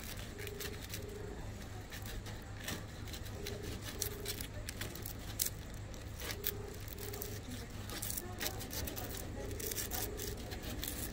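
Outdoor cafe ambience: scattered small clinks and scrapes of cutlery and crockery, with a faint double beep repeating about every three seconds over a low steady rumble.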